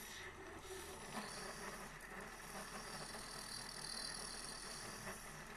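Small lathe running with a brass clock mainspring barrel spinning in the chuck while a cutting tool faces the peened brass bushing plug flush with the barrel. A steady running sound with a thin whine.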